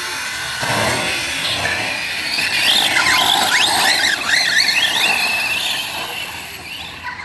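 Two large-scale RC off-road buggies running on a dirt track, their motors whining, the pitch swooping up and down as they speed up and slow. The whine is loudest in the middle and fades near the end.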